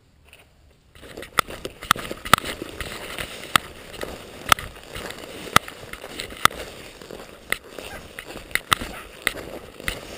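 Footsteps crunching through snow, with rustling and a sharp knock roughly once a second. They start suddenly about a second in.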